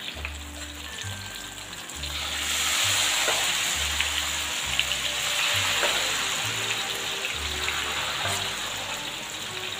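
Thin rice-flour batter poured into hot frying oil in a wok, sizzling loudly as it spreads into crispy flakes. The sizzle swells about two seconds in and slowly settles. Background music plays underneath.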